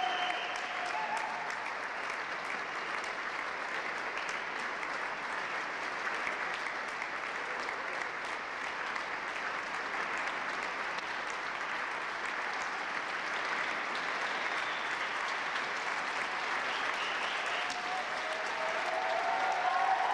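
Audience applauding steadily: dense, even clapping throughout.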